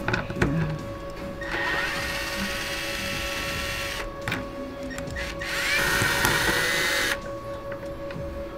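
Cordless screwdriver spinning a 10 mm socket to back out a bumper-bracket bolt, in two runs of a couple of seconds each with a whining motor, the second louder.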